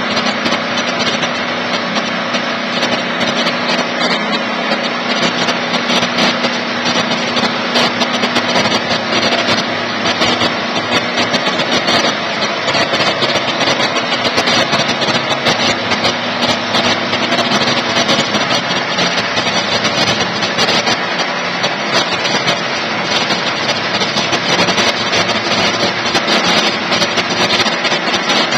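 Portable electric sawmill running: a steady machine noise with a dense crackle through it, and a low hum that fades about twelve seconds in.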